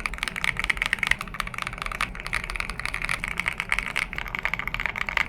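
Fast typing on a freshly assembled ROG Azoth Extreme mechanical keyboard fitted with PBT keycaps: a dense, continuous run of keystroke clacks, many per second, played as a sound test of the finished build.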